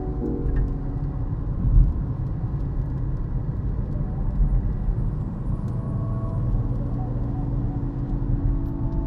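Car driving at speed: a steady, low rumble of road and engine noise.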